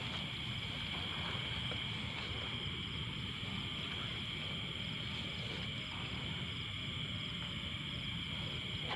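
Night insect chorus, crickets shrilling steadily in a continuous high-pitched band, with faint quick pulsing above it and a low rumble underneath.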